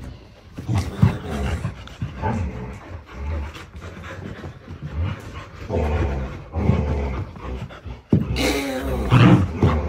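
Samoyeds vocalizing and panting in bursts during rope-toy play. About eight seconds in the sound cuts off sharply, then resumes with louder, more continuous pitched vocalizing.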